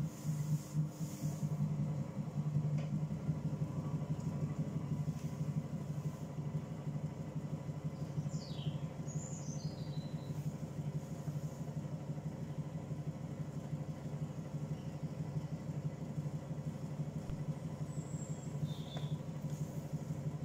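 Electric potter's wheel running with a steady low motor hum while it spins a leather-hard bowl being trimmed; the hum grows a little stronger about two seconds in.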